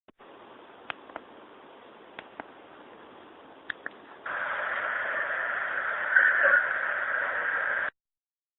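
Faint steady hiss of a low-quality recording with a few soft clicks, then a sudden much louder hiss from about four seconds in, with a brief louder swell about six seconds in.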